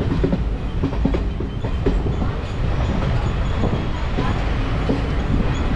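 Diesel-hauled passenger train running, heard from on board: a steady low rumble with irregular clicks and clatter from the wheels on the rails.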